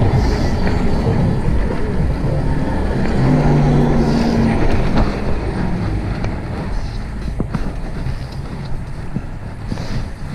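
Wind rushing over the camera microphone and tyre rumble from a fixed-gear bicycle riding along the street, with a car engine humming past about three to five seconds in. Several short knocks in the second half as the bike rolls over the sidewalk.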